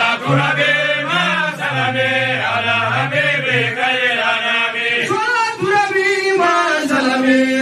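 Several men chanting together an Arabic devotional song of blessings on the Prophet (salawat), in long, gliding sung lines. A lower voice holds under the others for the first few seconds.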